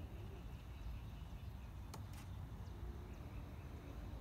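Quiet outdoor background: a steady low rumble with faint high chirps, and two short ticks about two seconds in. No sound from the cats stands out.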